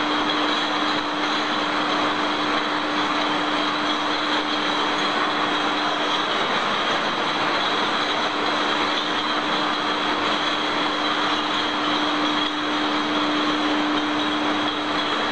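Factory machinery running steadily: an even mechanical hiss with a constant high whine and a steady hum. The hum drops out about six seconds in and returns about four seconds later.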